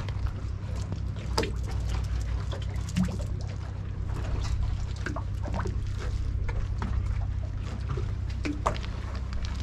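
Harbour water lapping and trickling against a moored fishing boat's hull and the quay wall, with irregular small splashes over a steady low hum.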